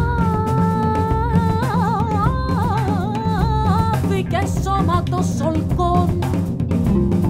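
Woman singing a Greek traditional song with a band of electric guitar, bass and drum kit. She holds one long note with a wide vibrato, then breaks into ornamented runs and shorter phrases about halfway through.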